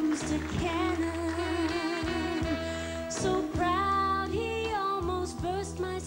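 A woman singing into a microphone over backing music, holding long notes with a steady bass line underneath.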